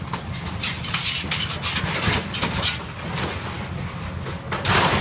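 Demolition of a corrugated-metal Quonset hut by a Caterpillar excavator: repeated cracking and crunching of breaking wood and sheet metal over the low, steady rumble of the excavator's diesel engine, with the loudest crash a little before the end.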